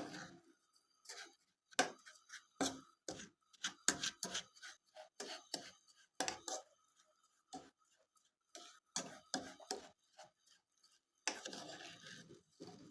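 A fork scraping and tapping against an old small ladle while stirring sugar and a little water as it starts to melt and dissolve; irregular light clicks and scrapes, one or two a second.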